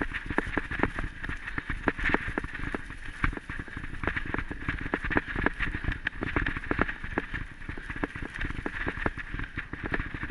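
Ride noise from a dog-pulled rig rolling fast over a rough dirt forest trail: steady rumble with dense, irregular rattles and knocks as the wheels hit bumps.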